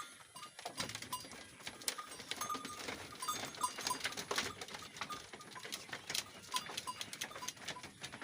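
A herd of penned goats moving about, with small neck bells clinking and ringing in short, irregular notes among knocks and rustling.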